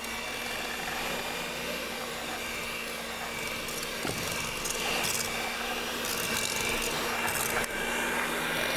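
Electric hand mixer switched on and running steadily, its beaters working thick choux pastry dough as a freshly added egg is beaten in.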